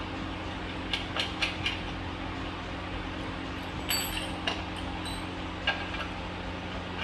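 Small metallic clicks and taps of screws being turned by hand into a pedestal fan's base plate: a few about a second in and a sharper cluster about four seconds in, over a steady low hum.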